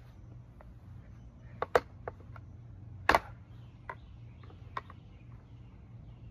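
Screwdriver prying at a plastic part of a lawnmower: scattered sharp clicks and knocks, the loudest two about a second and a half apart, over a steady low hum.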